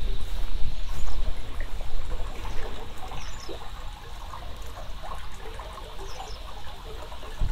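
Water trickling and gurgling in a small irrigation channel beside a rice paddy, with wind rumbling on the microphone during the first second or so. Faint insects call steadily in the background.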